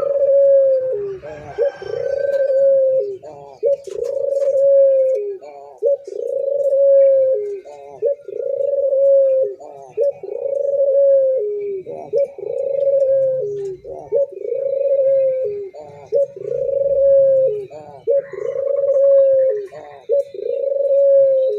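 A puter dove, a domestic collared dove, cooing over and over in a steady rhythm, one phrase about every two seconds. Each phrase is a low held coo with a short dip and rise in pitch. This is the vigorous ‘gacor’ cooing that keepers play to set quiet doves cooing.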